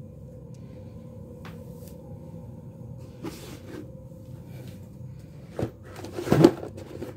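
A few scattered knocks and bumps over a steady low hum, with the loudest, a short cluster of thumps and rattles, about six seconds in.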